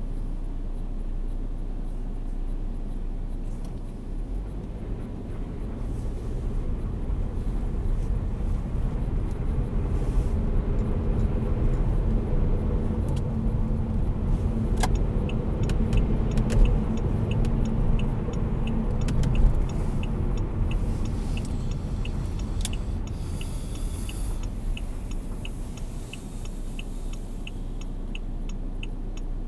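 In-cabin sound of a Saab 9-5 2.3t's turbocharged four-cylinder pulling away from a stop and cruising slowly, a low engine and tyre rumble that swells, then eases off. About two-thirds of the way in, the turn-signal indicator starts ticking steadily, about two clicks a second.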